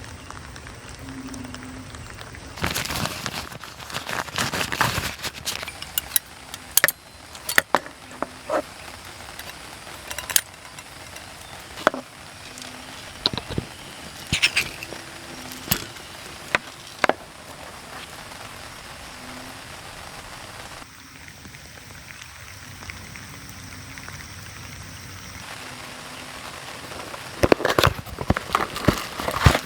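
Objects being handled, with sharp clicks and clatters every second or two over a steady hiss, and bursts of denser clattering about three seconds in and again near the end.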